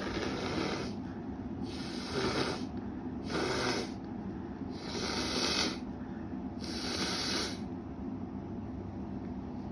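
Five short, hissing nasal bursts, one about every second and a half: a person holding back sneezes during an allergy fit. A steady low hum runs underneath.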